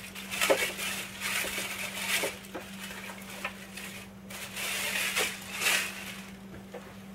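Thin clear plastic bag crinkling and rustling in irregular bursts as a shipping scale is pulled out of it, dying away near the end.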